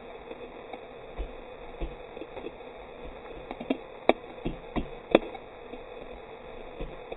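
Steady rush of fast-moving floodwater in a swollen creek. A handful of sharp taps or knocks come irregularly between about three and a half and five seconds in, the loudest just after five seconds.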